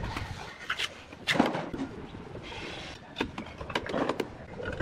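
Work sounds of laying terracotta roof tiles in mortar: scattered light knocks and clicks of tile against tile, and a brief trowel scrape about halfway through.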